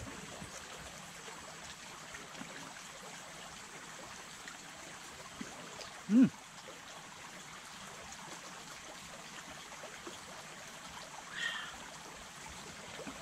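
Creek water flowing steadily, with one short loud sound about six seconds in.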